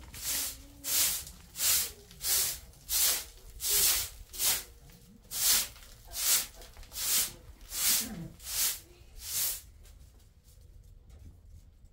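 Straw hand broom sweeping a woven floor mat: a swish with each stroke, about one and a half strokes a second. The strokes stop about nine and a half seconds in.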